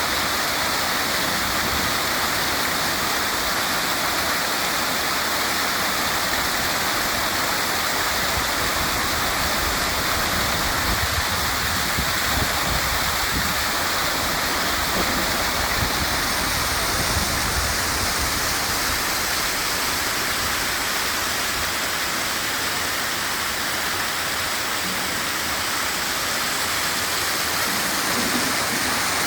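Waterfall rushing steadily, a constant even hiss of falling water.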